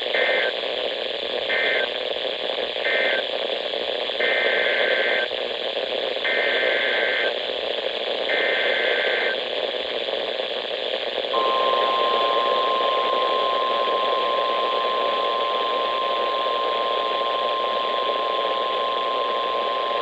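NOAA Weather Radio Emergency Alert System tones over steady radio static. First three short SAME end-of-message data bursts, then three longer, roughly one-second SAME header bursts of warbling two-tone data. About eleven seconds in, the steady 1050 Hz Weather Radio warning alarm tone comes on and holds for about nine seconds, announcing a new alert.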